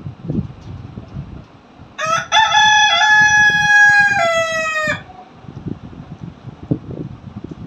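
Rooster crowing once, a single crow of about three seconds starting about two seconds in, its pitch stepping through several notes and falling at the end.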